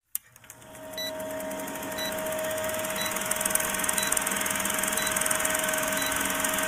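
Old film projector running with a fast clattering rattle and hiss over a steady hum, a short tick marking each second of a countdown leader. It swells up over the first second after a single click.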